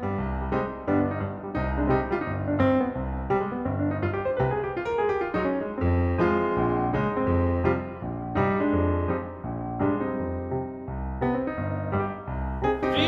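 Background music led by piano, with a steady bass line under a melody of struck notes.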